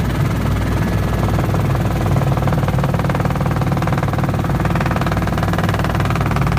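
Helicopter in flight: a loud, steady drone of engine and rotor with a fast, even pulsing.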